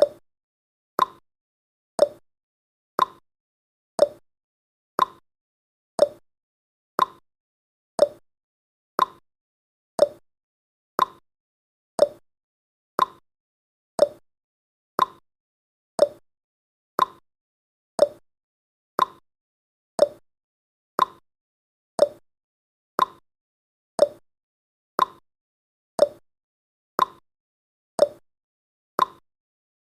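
Clock tick-tock sound effect: one short, sharp tick every second, alternating between a higher and a lower click, with silence in between.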